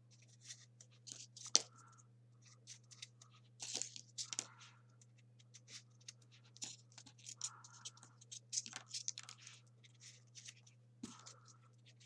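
Folded printer-paper 3D origami units rustling and scratching as they are slid and pressed into the rows of a paper model, many short scratchy rubs with a sharper click about a second and a half in. A low steady hum sits underneath.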